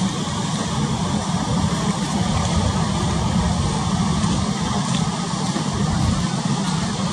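Steady low drone of a fishing boat's engine, heard through a constant hiss of wind and choppy sea.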